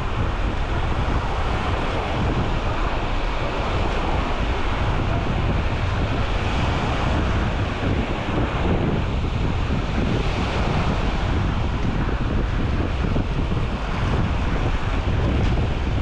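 Small waves washing and breaking along a sandy shoreline, a steady surf hiss, with wind buffeting the microphone and adding a low rumble.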